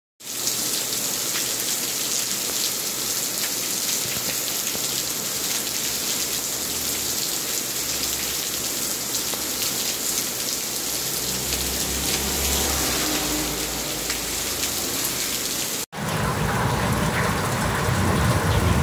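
Heavy rain falling steadily on a wet paved street, an even hiss. It breaks off for a moment about sixteen seconds in and carries on with a fuller, lower sound.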